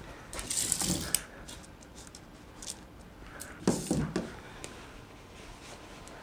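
Sewing machine and fabric being handled: short mechanical clicks and rustling in two bouts, with a sharp click a little over a second in and a few quick low knocks near the middle, as the bag is positioned for topstitching.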